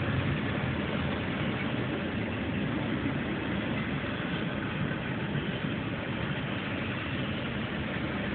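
Steady rumble of a double-stack container freight train's cars rolling past on the rails.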